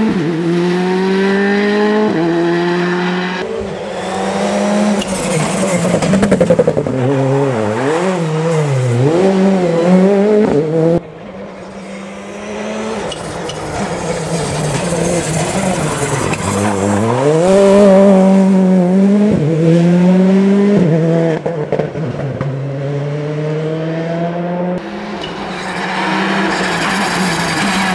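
Citroën C3 R5 rally car's turbocharged four-cylinder engine revving hard. The pitch climbs and drops sharply at each quick gear change, and swings rapidly up and down as the car brakes and downshifts between bursts of acceleration.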